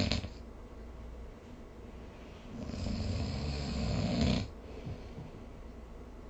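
A sleeping person snoring: the end of one snore right at the start, then about two and a half seconds in a long snore of roughly two seconds that grows louder and cuts off suddenly.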